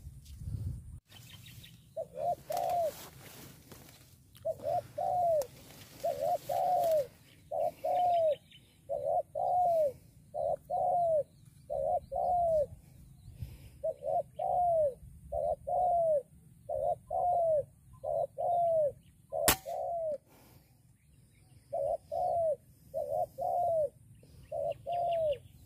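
Spotted dove cooing: a steady run of arched two-note coos about every second and a half, with a short break about three-quarters of the way through. Just before the break comes a single sharp click, the air rifle's shot.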